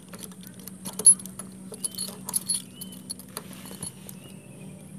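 Keys jangling and small irregular metal clicks as a padlock locking a tent's door zipper is worked with its key, with one sharp click about a second in.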